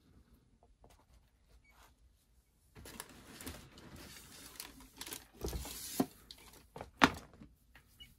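Tissue paper rustling and crinkling in a cardboard shoebox as a pair of sneakers is lifted and handled, followed by a few soft thumps as the shoes and box are set down. The loudest thump comes about seven seconds in.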